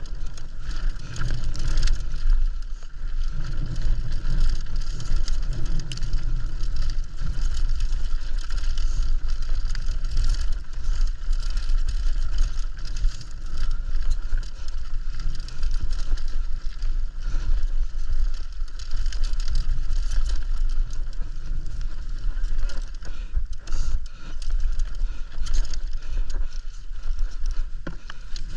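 Mountain bike riding fast downhill, heard from a GoPro on the rider: heavy wind rumble on the microphone, a steady hiss and frequent rattling clatter.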